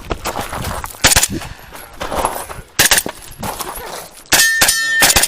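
Pistol-caliber carbine firing quick pairs of shots, then a fast string near the end with steel targets ringing as they are hit.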